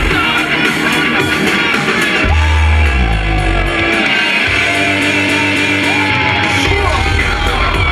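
Loud live band music with long held bass notes that cut out and come back in.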